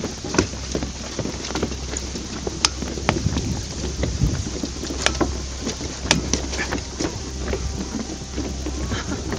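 Irregular clicks and light knocks, several a second at uneven spacing, over a steady low rumble.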